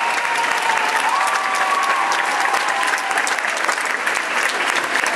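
Audience applauding: dense, steady hand clapping from many people.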